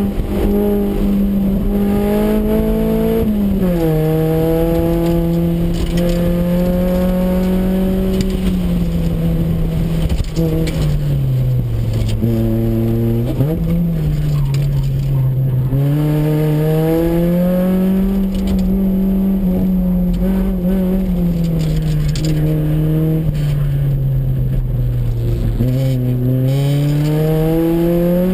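Honda CRX's four-cylinder engine heard from inside the cabin, driven hard on an autocross course. Its pitch repeatedly climbs under throttle and falls off as the driver lifts and brakes, with several sudden drops.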